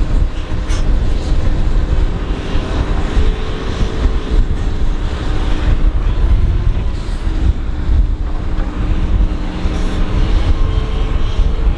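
Doosan DX225LC excavator's diesel engine working steadily under load as the machine digs, swings and loads soil into a dump truck, with a heavy low rumble.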